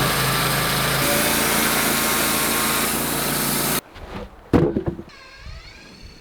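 Portable bandsaw mill running and its blade cutting through a log, a steady engine note under a loud saw hiss, cutting off abruptly a little under four seconds in. A few sharp knocks follow.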